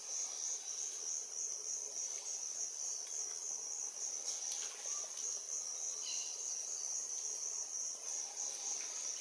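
A steady, high-pitched insect chorus trilling without pause, with a few faint clicks about four and a half seconds in and again near the end.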